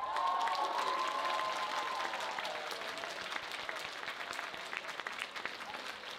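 Audience applauding at the close of a drum performance, strongest at first and slowly dying down.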